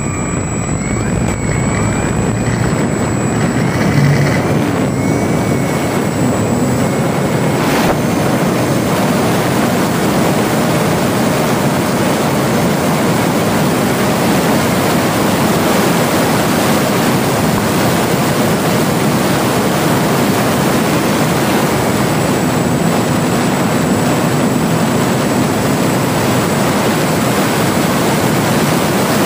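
ParkZone Spitfire RC model's electric motor and propeller at high throttle through take-off and low flight, heard from the onboard camera as a loud, steady rush of prop and wind noise. A faint thin whine shows over the first several seconds.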